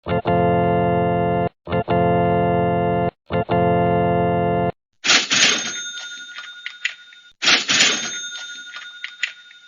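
Edited-in sound effects: three held organ-like chords with short gaps between them, then two bright crashing hits about two and a half seconds apart, each ringing and fading away.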